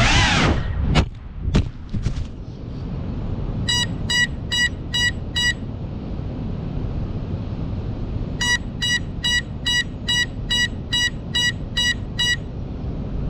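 Two sharp knocks as the GEPRC CineLog 35 FPV drone crashes into the grass. Then a steady low hiss of wind on the camera's microphone while the downed drone's buzzer beeps, about two a second: five beeps, a pause, then ten more.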